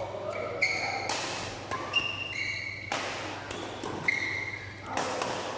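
Badminton rally: the shuttlecock is struck sharply by rackets about once a second, including a Victor BS12 strung with 65 Ti at 10.5 kg. Short high squeaks, typical of court shoes on the floor, come between the hits, and the hall echoes.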